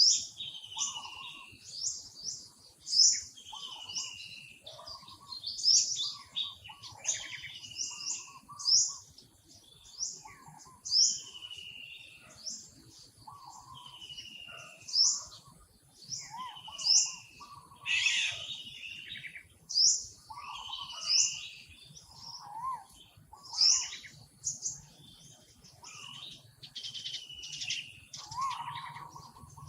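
Several birds chirping and calling in a forest. Short high chirps come every second or so, mixed with lower whistled calls and falling notes.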